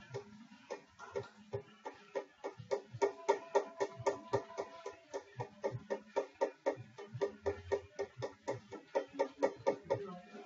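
Background electronic music with a fast, steady beat and sustained synthesizer tones.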